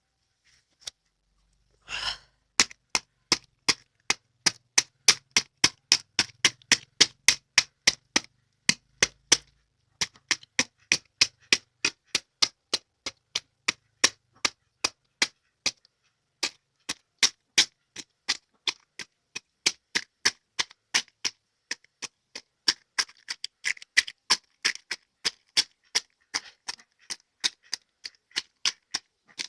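A duck's bill tapping as it pecks at food: sharp clicks about three a second, starting about two seconds in, with a longer rasp at the first strike.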